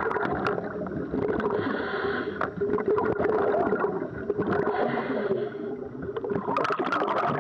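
Muffled underwater sound: gurgling water with a steady hum and many scattered clicks and crackles.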